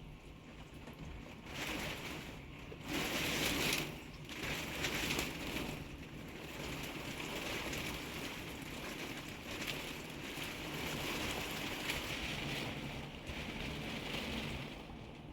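Heavy summer downpour: a steady hiss of rain, with louder swells of noise about two and three seconds in.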